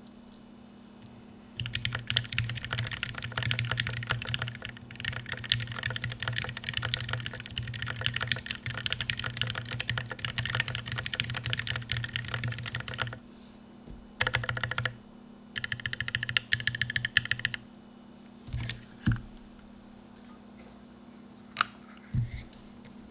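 Typing on an OLKB Planck Mid-Pro ortholinear keyboard with Krytox-lubed Gateron Milky Yellow linear switches, case and plate foam, and PBT Cherry-profile keycaps. Fast continuous typing runs for about eleven seconds, followed by two shorter bursts and then a few single keystrokes near the end.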